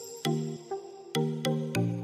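Background music with a steady beat of short, sharply struck pitched notes.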